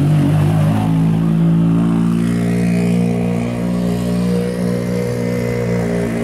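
Ford Fiesta R5 rally car's turbocharged four-cylinder engine running at low, steady revs as the car rolls slowly away.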